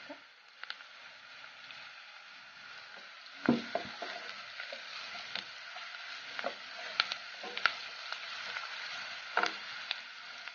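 Chopped onions and whole spices sizzling in oil in a non-stick pan, stirred with a wooden spatula that scrapes and knocks against the pan every second or so. The sharpest knocks come about three and a half seconds in and near the end.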